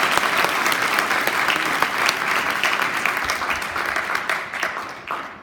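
Audience applause in a large room, many hands clapping and fading out near the end.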